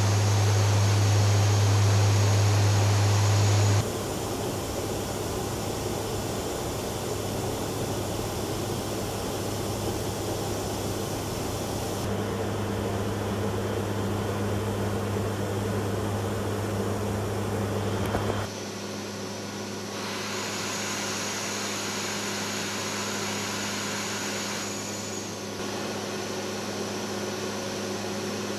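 Steady drone of a WC-130J's four turboprop engines and propellers in flight: a low hum with a strong pitch near 100 Hz over a hiss. The level and tone change abruptly three times.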